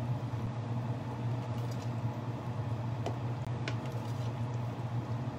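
A steady low hum with a couple of faint light taps about three seconds in.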